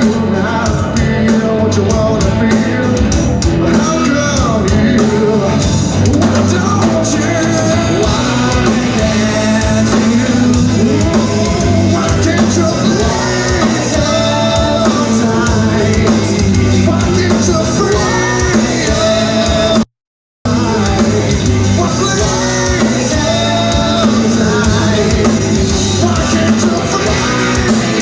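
Live grunge rock band: a singer's voice over electric guitar, bass and drums. About two-thirds of the way through, the sound cuts out completely for about half a second, then comes back.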